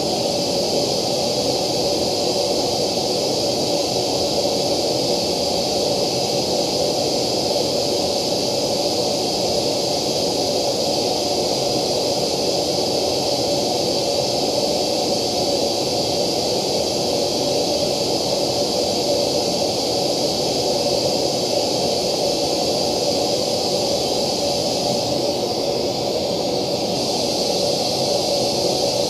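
Steady hiss-like test noise played through a loudspeaker with a JBL ring-radiator tweeter fitted with an acoustic lens/slant plate, at an even level and thin in the middle pitches. Near the end the highest pitches dull for about a second and a half as the lens assembly comes off, then return.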